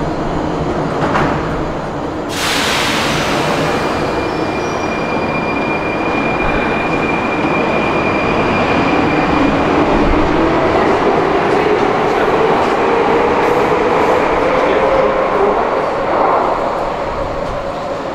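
Prague metro line B train running, with a sudden loud hiss about two seconds in that fades away. A whine then rises slowly in pitch over several seconds.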